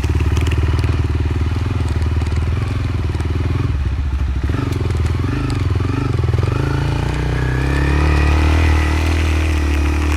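Motorcycle engine running under way on a dirt road, its revs rising and falling a few times about halfway through, then held higher and steady toward the end.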